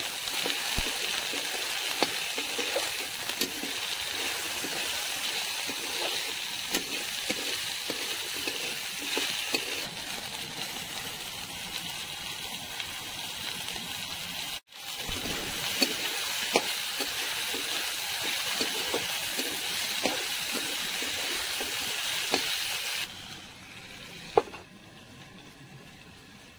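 Potatoes, onions and tomatoes sizzling in hot oil in a metal kadai, with a metal spatula scraping and tapping against the pan as they are stirred. Near the end the sizzle falls to a quieter, muffled hiss, with one sharp clank as a steel lid is set on the pan.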